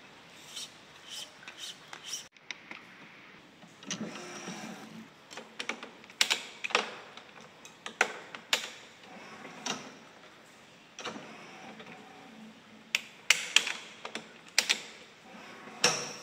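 Irregular sharp clicks and light knocks from a badminton stringing machine's clamps and tension head as a racket is strung by hand.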